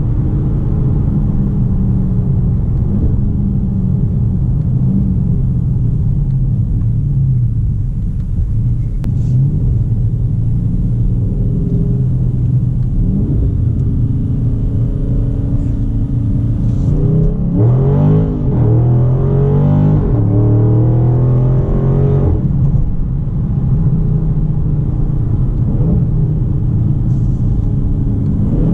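Dodge Charger Scat Pack's 6.4-litre HEMI V8 running on the road, a steady low engine and exhaust note. A little past the middle it pulls harder, the pitch climbing and dropping several times in quick succession, then settles back to a steady cruise.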